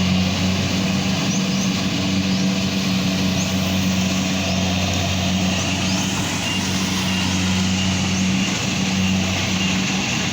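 An engine running at a steady speed, a constant low drone with no change in pitch.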